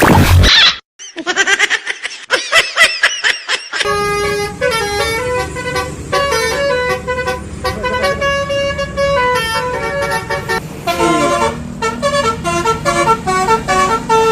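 A brief warbling tone, then from about four seconds in a multi-tone telolet bus horn plays a quick tune of separate held notes over a steady low rumble.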